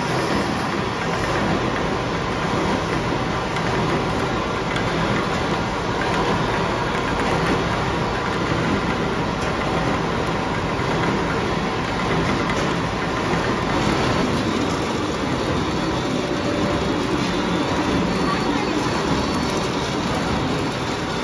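Paper straw production line running continuously, with a steady, dense mechanical noise from its drives and cutters and a faint whine over it.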